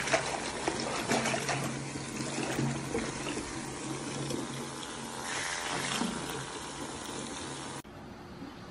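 Bath tap running into a foamy tub while a hand swishes and splashes through the water. A low steady hum sits under it, and the water sound drops off sharply near the end.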